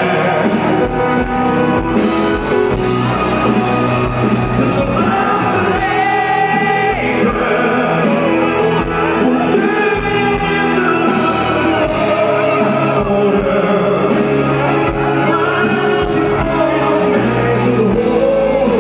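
Male lead vocalist singing live over a band with electric guitar and piano.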